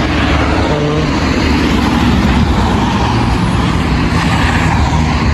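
Road traffic: cars driving past, a steady mix of engine and tyre noise with a couple of swells as vehicles go by.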